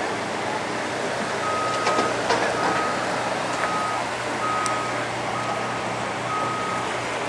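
Electronic beeping at one steady pitch: six beeps, roughly one a second, of the kind a vehicle's reversing alarm makes. Under it is a steady background noise.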